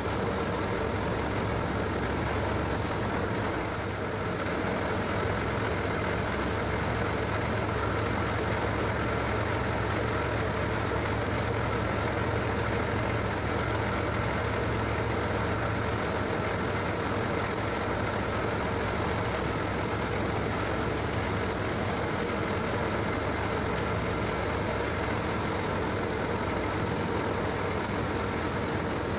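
Motorised paddy threshing machine running steadily as rice sheaves are fed through it: a constant low engine drone with the whir of the threshing drum.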